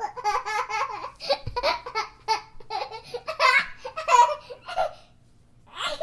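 A baby laughing in a quick run of short, repeated bursts that breaks off about five seconds in, with a fresh laugh starting near the end.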